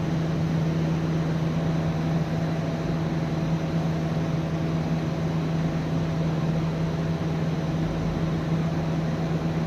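A steady machine hum with a low droning tone and an even hiss behind it, unchanging throughout, like a room fan or air-conditioning unit running.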